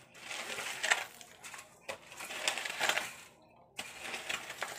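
A wooden-handled digging tool scraping and chopping into loose dirt and rubble in repeated gritty strokes, in three short bouts with a brief pause a little after three seconds in.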